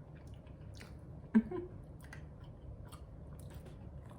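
Close-up chewing of a soft, loaded quesadilla: faint wet clicks and squishes of the mouth, with one brief louder mouth sound about a second and a half in.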